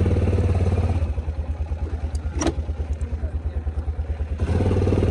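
ATV engine running at idle with an even, throbbing beat. It eases off a little a second in and grows louder again near the end, with a couple of brief clicks in between.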